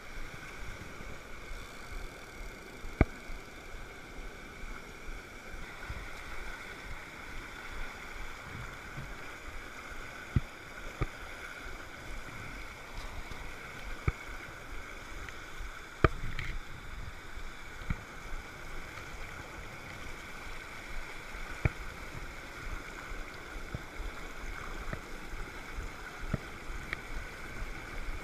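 Fast mountain stream rushing over boulders, a steady full water noise. A few sharp clicks and knocks stand out at scattered moments.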